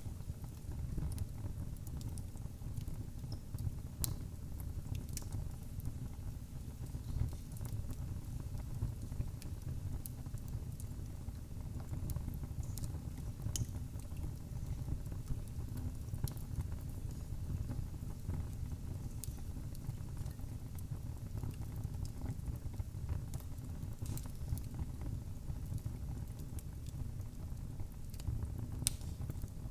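Wood fire burning in a fireplace: a steady low rumble of the flames with scattered sharp crackles and pops, a few louder ones now and then.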